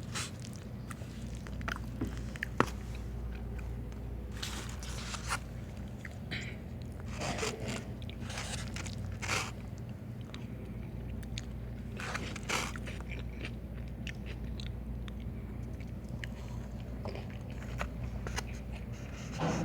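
Close-miked eating sounds: a person biting and chewing food, with irregular crunches and small wet clicks, over a steady low hum.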